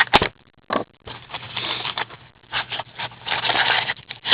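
Hockey trading cards and pack wrappers being handled: scraping and rustling, with a sharp click right at the start.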